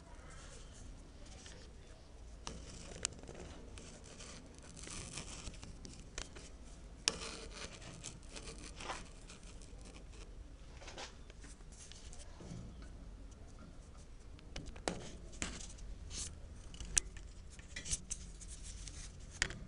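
Quiet room with faint, scattered rustles and small clicks, a few sharper clicks standing out, over a faint low hum.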